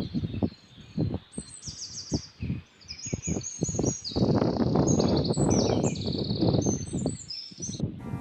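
Small birds chirping and twittering, many quick high calls and short trills overlapping, with an irregular low rumble underneath.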